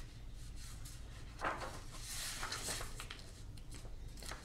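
Paper rustling as a sheet of instructions is handled and a page is turned, with a soft knock about one and a half seconds in, over a low steady hum.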